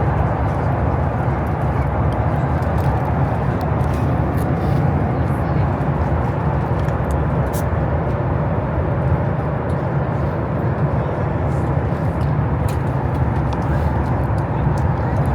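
Steady, even rumble of a vehicle heard from inside its cabin, strongest in the low range and unbroken throughout.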